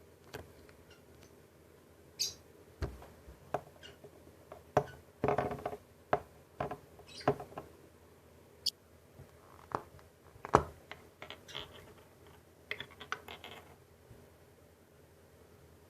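Slime being squeezed and poked, giving irregular wet clicks, squelches and small air-bubble pops with a few higher squeaks, loudest around the middle.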